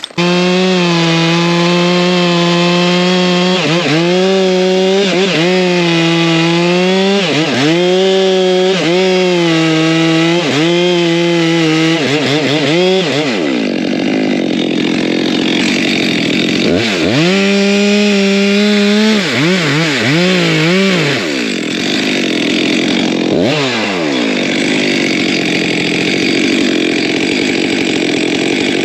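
Two-stroke chainsaw running at high revs, its pitch repeatedly dipping and climbing back as it bogs under load cutting into wood.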